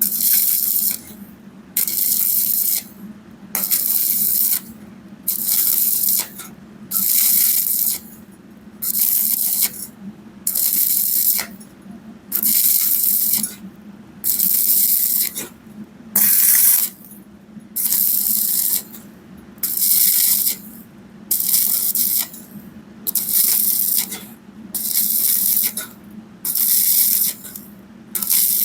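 Stick-welding arc crackling and hissing in short, even bursts, about one every second and a half: the arc is struck and broken over and over, an intermittent whip-and-pause technique on thin 2.35 mm pipe with a 2.0 mm rod at 80–90 A. A steady low hum runs underneath.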